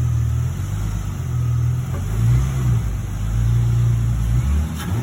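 Car engine running steadily with a low, even hum that cuts off suddenly near the end.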